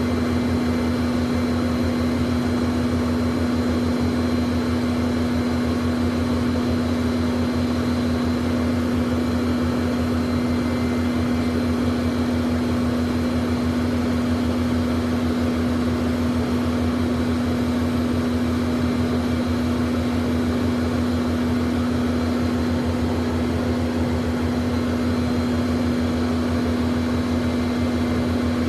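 Learjet business jet engines idling, heard inside the cabin: a steady, unchanging hum with a strong low drone and faint high whine tones over an even rush of air.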